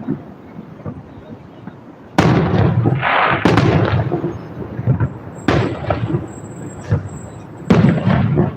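Fireworks display: a few small pops, then about two seconds in a dense barrage of low booms and sharp bangs begins, with crackling among them.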